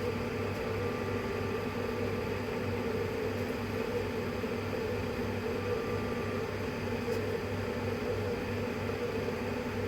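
Steady mechanical hum of a running 3D printer, with a faint high tone that comes in briefly about six seconds in.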